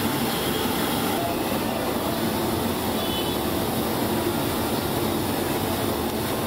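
Steady street noise: a constant traffic-like rumble with a hiss over it.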